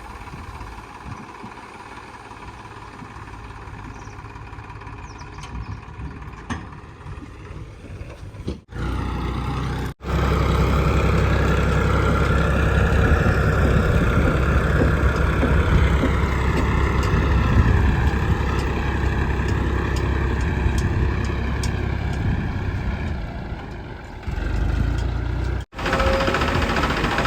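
Heavy diesel engine of a JCB 3DX backhoe loader running, quieter at first, then much louder after a short break about ten seconds in, its pitch rising and falling as it works.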